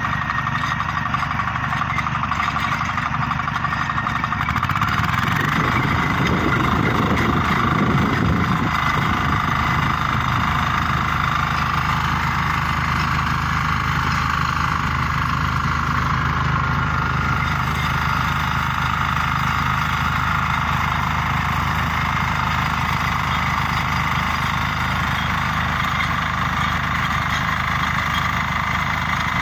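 Walk-behind rotary tiller engines running steadily as the tillers work the soil, a constant motor drone throughout.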